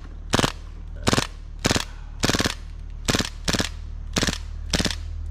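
Airsoft gun firing eight short full-auto bursts, one about every two-thirds of a second, each a quick rattle of several shots.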